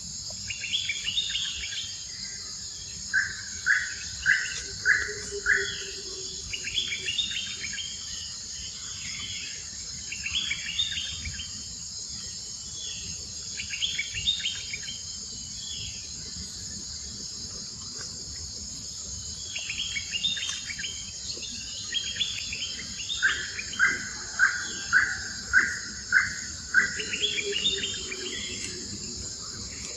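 Wild birds calling in short repeated chirping phrases over a steady high drone of insects. Twice, a run of five or six loud, evenly spaced notes stands out, once a few seconds in and again near the end.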